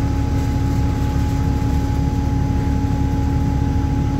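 New Flyer D40LF diesel transit bus idling, heard from inside the passenger cabin: a steady low engine rumble with a constant hum over it.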